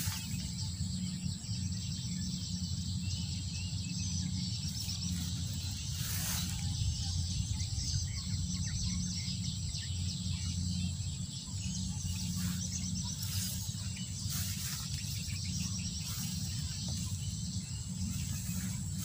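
Field ambience of an insect chorus: a steady high buzz with many small chirps, some of them from birds. A low steady hum runs underneath, with a few brief knocks.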